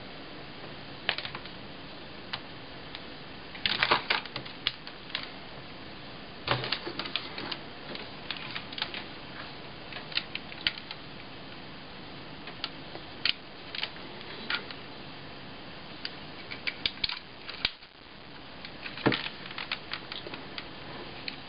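Scattered plastic clicks and knocks, some in quick clusters, from a Sharp Mobilion HC-4500 handheld PC's case being handled and turned over in the hands. A steady faint hiss runs underneath.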